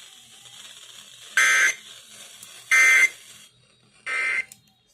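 Emergency Alert System end-of-message data bursts received over the radio: three short, harsh digital tone bursts about 1.3 s apart, the signal that closes a broadcast alert, over faint radio static.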